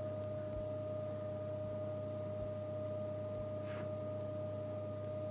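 Steady, unwavering single-pitch whine with a fainter higher tone and a low hum beneath it: constant electrical background noise in the recording, with no other clear sound.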